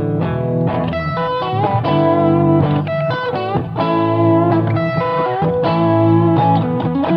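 Instrumental guitar music: an electric guitar playing a melodic line of held and changing notes over a steady low backing.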